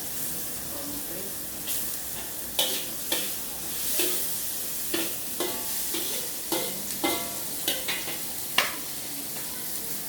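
Fried rice sizzling in a hot wok while a metal spatula stirs and tosses it, clanking against the pan about ten times at an uneven pace over the steady frying hiss.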